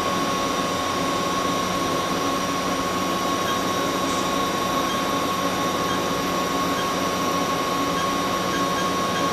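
Haas VF3 vertical machining center's spindle running steadily at 2,000 RPM: an even machine hum with a constant high-pitched whine.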